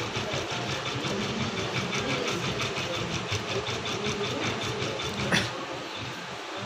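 Usha Janome Memory Craft 550E computerised embroidery machine stitching out a design, a fast, even run of needle strokes. A sharp click comes about five seconds in, after which it goes quieter.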